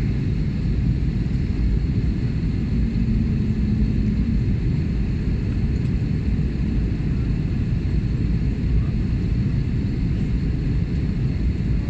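Steady low rumble inside an airliner cabin in flight: jet engines and airflow heard from a window seat.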